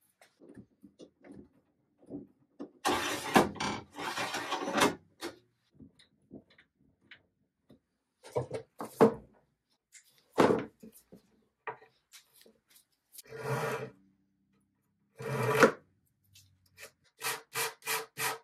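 Hand sanding on the edge of a walnut burl veneer panel: a sanding pad rubbing over the wood in several separate passes, then quick back-and-forth strokes about three a second near the end.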